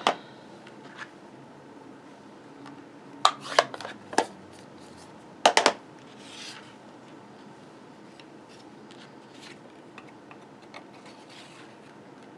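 Sharp plastic clicks and knocks as a handheld paper circle punch is picked up and handled, with a loudest double click about halfway through, then a brief soft rustle of cardstock sliding into the punch to be lined up.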